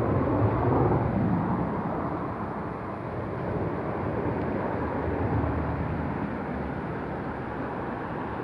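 Steady low rumbling outdoor noise with no voice, swelling slightly about a second in and again around five seconds in.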